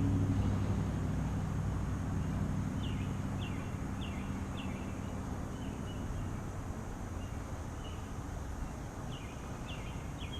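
Outdoor ambience of steady noise with a low hum fading out over the first couple of seconds. A bird gives short, repeated downward chirps through the middle and again near the end.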